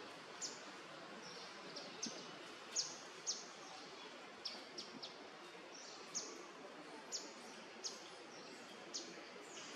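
A bird chirping: about a dozen short, sharp, high chirps, each dropping quickly in pitch, spaced irregularly about once a second over a steady hiss of forest ambience.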